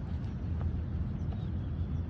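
Steady low outdoor rumble with a few faint soft taps.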